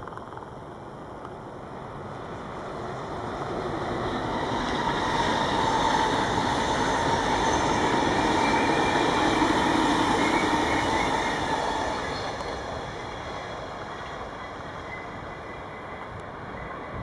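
A train passing on the tracks, building from about two seconds in, loudest in the middle and fading away after about twelve seconds, with a faint high wheel squeal in its second half.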